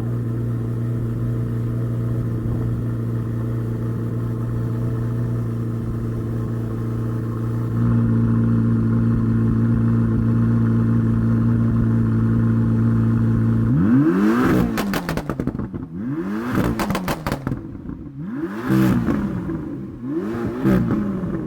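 Chevrolet Corvette ZR1's V8 idling steadily, its idle note stepping up slightly about eight seconds in. Near the end it is revved four times in short blips, each rising and falling back, about two seconds apart.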